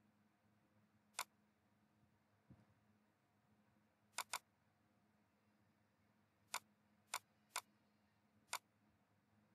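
Computer mouse button clicks: seven sharp single clicks spread irregularly, two of them in quick succession like a double-click about four seconds in, over a faint steady hum. A soft low thump about two and a half seconds in.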